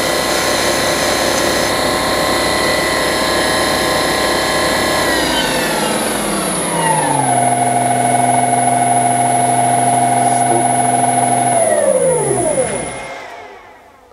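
1602 lathe's motor and spindle drive, fed from a frequency converter, running with a steady whine. About five seconds in the pitch slides down and holds lower, then near the end it winds down to a stop.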